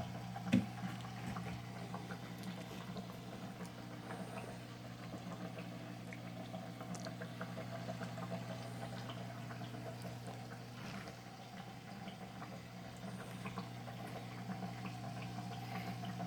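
Steady low electrical hum with faint scattered clicks and light rustles.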